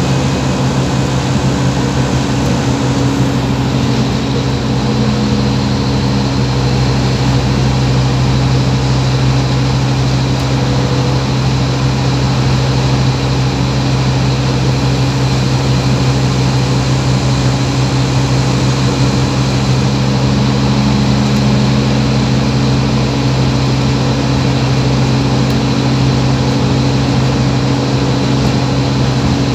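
Scania OmniCity single-deck bus's diesel engine running steadily, a constant low drone with a few steady tones, heard from inside the passenger saloon.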